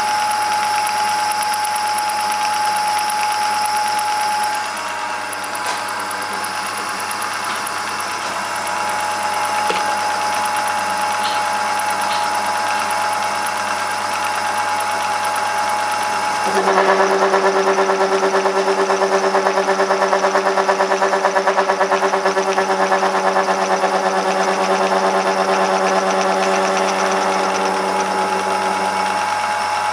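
Homemade metal lathe running with a steady motor and gear whine. About 17 s in, a louder, low humming with a fast pulsing joins it, and it cuts off shortly before the end.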